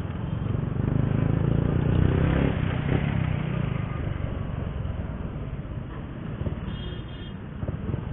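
Honda RS125fi's single-cylinder four-stroke engine running under way in traffic, with road and wind noise. It grows louder about a second in and eases off again after about three seconds.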